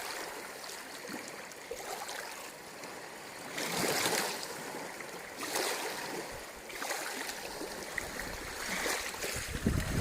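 Gusting wind, a rushing noise that swells and eases every second or two.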